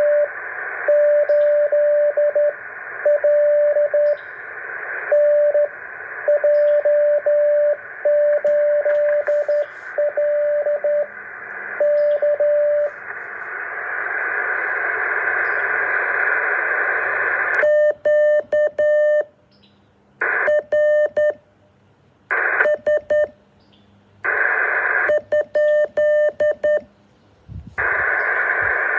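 Morse code on a radio receiver: a single steady beep tone keyed on and off in short and long marks over a band of receiver hiss. The keying stops about thirteen seconds in, and from about eighteen seconds the hiss and tones cut in and out in chunks with silent gaps between.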